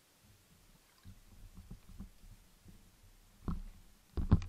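Underwater handling noises of a speargun: scattered low thuds, then sharp knocks about three and a half seconds in and a louder double knock near the end as the diver takes hold of the shooting line at the muzzle.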